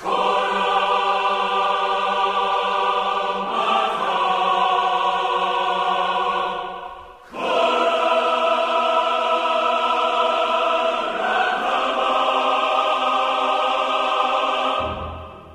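Background music: sustained choir-like chords held for a few seconds each, changing chord three times, with a short fade-out and return about seven seconds in.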